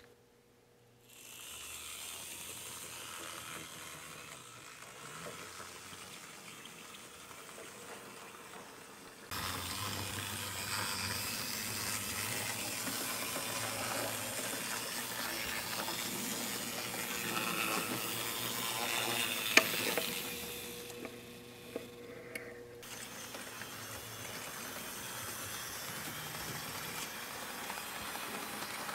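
HO-scale TYCO/Mantua 0-4-0 switcher locomotive running on the track with cars in tow: a steady whirring hiss of its small electric motor and wheels on the rails, louder from about nine seconds in, with one sharp click near twenty seconds.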